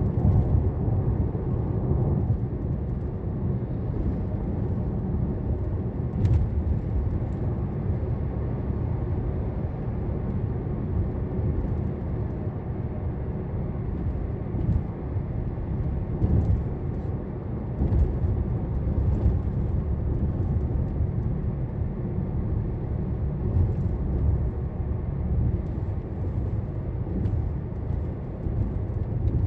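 Car cabin noise while driving: a steady low rumble of engine and tyres on the road, swelling a little now and then, with a few faint clicks.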